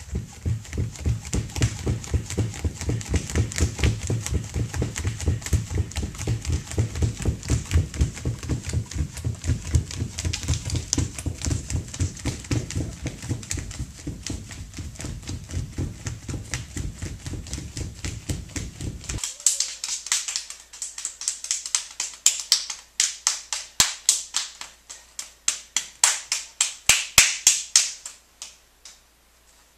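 A steady rhythm of sharp clicks or taps, about two or three a second, full and low for the first two-thirds, then thinner and higher, stopping suddenly near the end.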